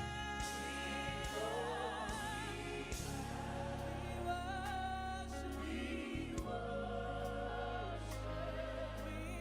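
Gospel worship music: sung vocals with vibrato over sustained keyboard and bass chords and cymbal swells.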